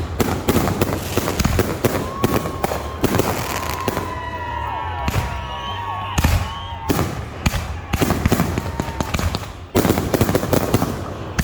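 Fireworks display: rapid crackling and popping bursts with bangs throughout. From about two to seven seconds in, several whistles glide in pitch among the crackle. A loud bang comes near the end.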